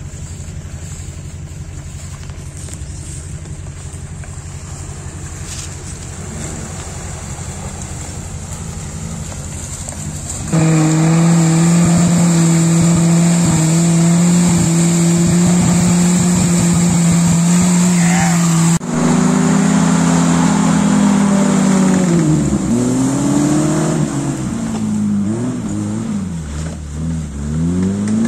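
Off-road 4x4 engines working through deep mud: first a steady engine note, then, about ten seconds in, an engine held at high revs as the wheels spin and fling mud, and in the last third an engine revving up and down again and again.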